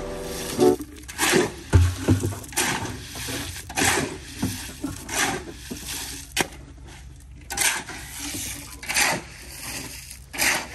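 Metal shovel blade scraping and chopping through wet concrete mix on hard ground, mixing by hand, a stroke roughly every second and a quarter.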